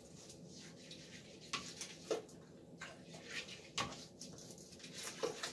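Silicone-bristle toilet brush scrubbing around a wet porcelain toilet bowl and up under the rim: faint, irregular swishes and scrapes.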